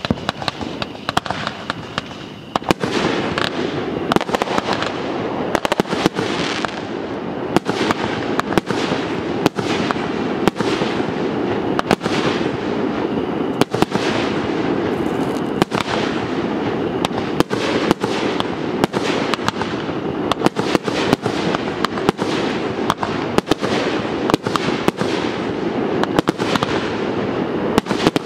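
A fireworks show with firework cakes and aerial shells going off in quick succession: a rapid, irregular string of sharp bangs over a continuous dense wash of overlapping blasts, which grows louder about two and a half seconds in.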